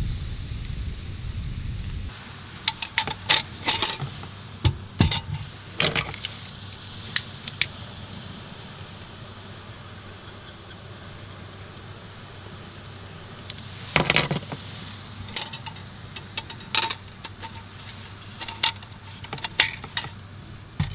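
Irregular sharp metallic clinks and clatters of camp cookware and utensils being handled, in short clusters with a pause in the middle.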